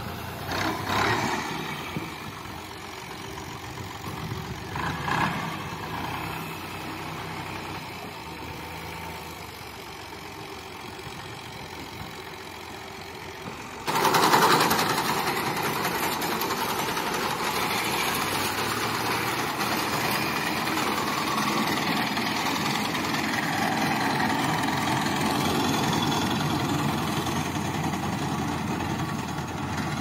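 Fiat 480 tractor's three-cylinder diesel engine running steadily under load while driving a front-mounted wheat reaper, with the rattle of the reaper's cutter bar mixed in. About halfway through the sound suddenly gets louder and stays steady.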